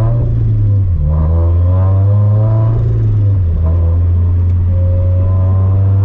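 Turbocharged 2013 Scion FR-S's flat-four engine with its aftermarket exhaust, heard from inside the cabin while driving. The engine note breaks briefly about a second in, as at a gear change, then climbs under acceleration and settles into a steadier drone in the second half.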